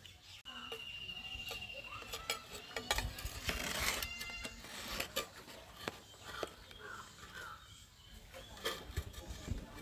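Steel spoon clinking and scraping against a clay pot as rice and bottle gourd leaves are turned over, a run of sharp clinks with the busiest scraping about three to four seconds in.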